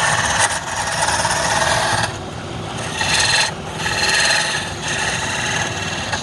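Palm wood spinning on a lathe being scraped with a hand tool, giving a rasping scrape. It runs steadily for about two seconds, then comes in two shorter spells about three and four seconds in.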